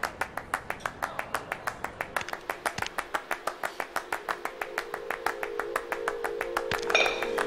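Soundtrack of sharp rhythmic clicks, about five a second and quickening toward eight, with a steady droning note joining about halfway and a bright chime near the end.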